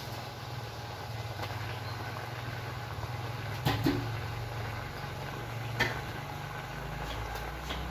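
A steady low hum with a few sharp clinks of kitchen utensils against cookware: two close together about halfway through and one more a couple of seconds later.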